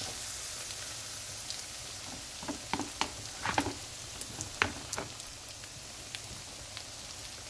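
Dough patties shallow-frying in hot oil in a frying pan: a steady sizzle, with a run of sharp pops and crackles for a couple of seconds around the middle.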